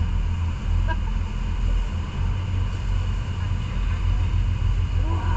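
Jet boat running at speed on the river: a steady low engine rumble mixed with the rush of wind and water.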